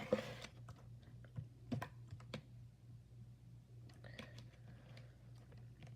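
Slime being worked back into its container: scattered sharp clicks and taps, the first followed by a brief rustle, over a low steady hum.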